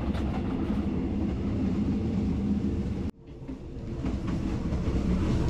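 A moving passenger train running, heard in the gangway between carriages: a steady low rumble. About three seconds in it cuts out abruptly, then fades back up.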